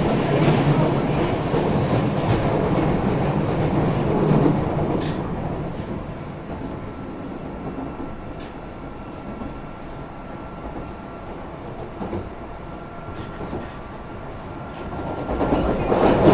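Osaka Metro 30000 series subway train with Mitsubishi IGBT inverter drive running on the rails. Loud rolling noise for the first few seconds, then a quieter stretch with a faint steady whine and a few rail-joint clacks, growing loud again near the end.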